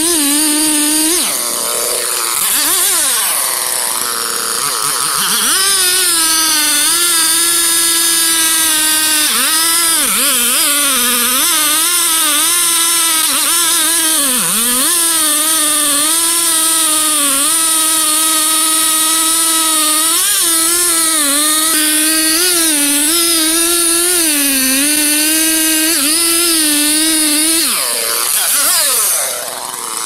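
Two-stroke chainsaw running at full throttle while cutting deep into a large tree trunk. Its pitch sags and recovers several times as the chain bites into the wood, with a brief drop near the end.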